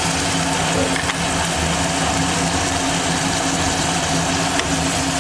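Steady mechanical hum with a broad hiss, running unchanged, with a couple of faint clicks about a second in and near the end.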